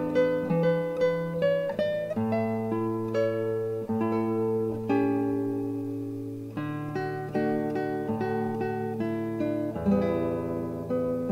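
Instrumental music: a guitar picking a slow melody of single notes, each ringing out and fading, over long held bass notes.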